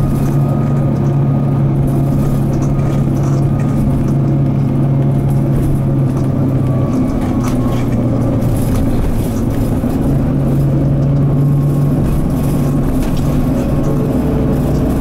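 Mitsubishi Fuso Aero Midi MK bus's 6M61 six-cylinder diesel engine pulling steadily on the road, heard from inside the cabin. Its pitch drops around seven seconds in and rises again around ten seconds.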